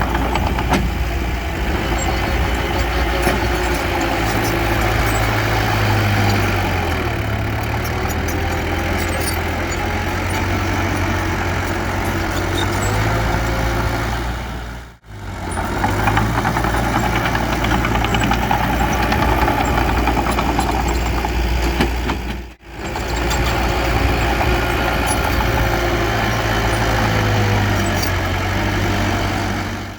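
Heavy diesel engine of earthmoving machinery running steadily, its pitch dipping and recovering slightly as it works. The sound cuts out briefly twice.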